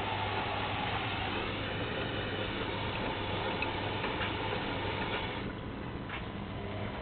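A Bauknecht washing machine and an mkm tumble dryer running together: a steady mechanical hum with a few light ticks. The hissing part of the noise eases off about five and a half seconds in.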